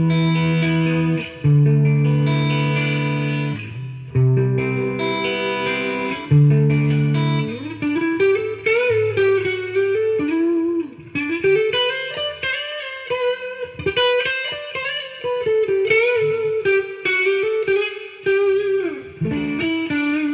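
Ibanez RG350EX electric guitar on its full humbucker setting, played clean through a Roland Blues Cube BC-60 amp with built-in reverb, with a thick, heavy tone. Four strummed chords are left to ring, then from about seven seconds in comes a single-note lead line with bends and vibrato.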